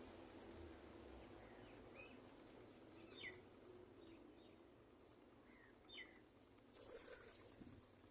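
Small bird giving brief, sharp chirps that sweep downward in pitch, two clear ones about three and six seconds in and a few fainter ones between, over faint background hiss. A short, high hissing sound follows near the end.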